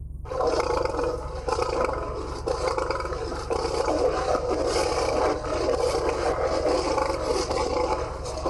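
Lion vocalizing in one long, unbroken, rough stretch that starts just after the beginning, with a steady low hum beneath it.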